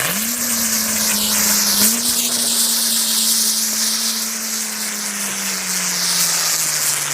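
Rumba Dance ground-spinner firework burning and spinning: a steady loud hiss of sparks with a low whirring hum that climbs quickly as it catches and sinks slowly toward the end.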